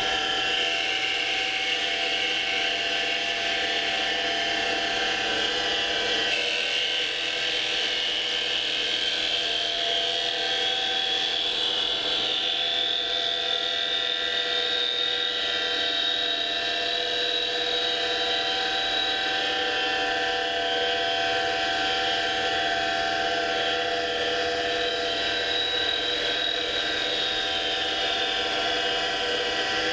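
7x16 Micro-Lux mini lathe spindle running at about 2,500 RPM while its CNC-driven carbide profiling cutter takes a roughing pass along a small wooden blank. A steady machine drone with a high whine that drifts slowly up and down in pitch, and a hissier edge that comes in about six seconds in.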